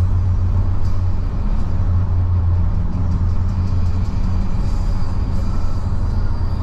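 Steady low rumble of a car's engine and tyres on the road, heard from inside the cabin while driving at a constant speed.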